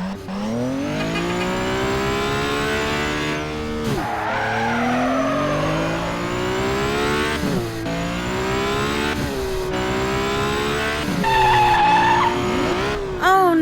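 Cartoon vehicle engine sound effects revving, the pitch climbing again and again in runs of a few seconds. About eleven seconds in comes a steady held tone, then a wavering, warbling one.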